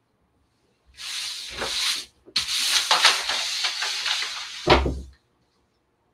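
Rustling and scraping handling sounds in two stretches, the first about a second long and the second about three seconds, with a dull thump near the end.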